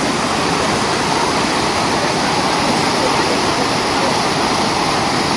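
The Rhine Falls, a large river waterfall, pouring over rocks: a steady, even rush of falling and churning water heard close by.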